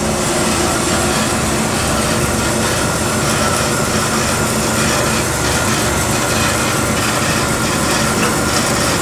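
A DoAll 2013V vertical band saw running idle in its high blade-speed range, a steady, even mechanical running noise with a constant hum.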